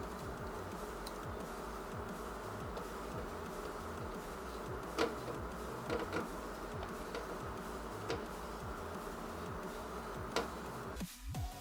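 A steady buzzing hum, with a few sharp clicks of screws and a screwdriver as a motherboard is screwed down. About eleven seconds in the hum gives way to background music.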